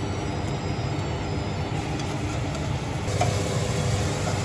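A steady low rumble, with faint sizzling of oil heating in a pan on a gas hob.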